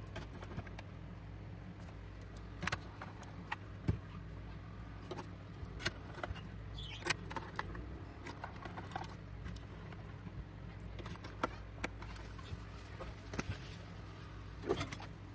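Irregular clicks, taps and knocks of a pry tool and fingers on the plastic housing of a Vifa Oslo Bluetooth speaker being taken apart, the loudest knock near the end, over a low steady hum.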